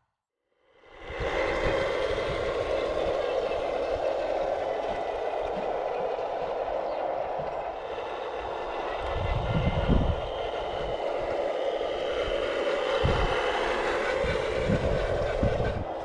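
Radio-controlled Scania truck model driving, its drive giving a steady mechanical whine that starts after a moment of silence and dips in pitch briefly near the end. A few low thumps come in the second half.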